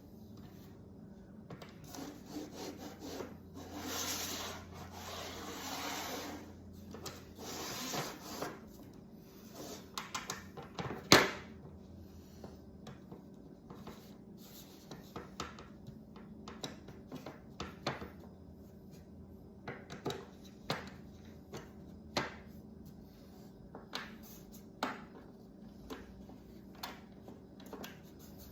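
Wood scraping and rubbing as an MDF table-saw insert is worked into place by hand. A sharp knock comes at about a third of the way in, followed by scattered light taps and clicks.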